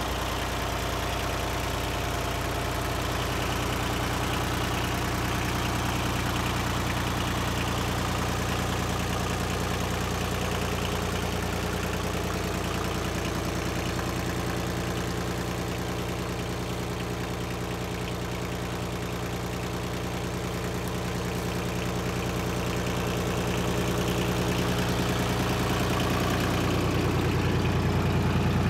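Yanmar YM2010 compact tractor's diesel engine idling steadily, getting a little louder over the last few seconds.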